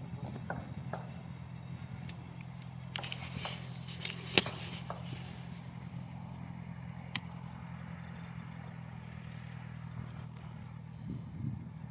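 Socata TB-10 Tobago's four-cylinder piston engine and propeller idling, heard from a distance as a steady low drone. A few sharp clicks cut across it, the loudest about four seconds in and another about seven seconds in.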